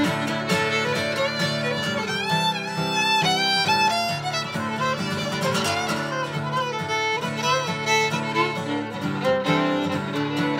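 Instrumental break in a bluegrass song: a fiddle plays the lead line over strummed acoustic guitar, with a run of sliding, bending notes a couple of seconds in.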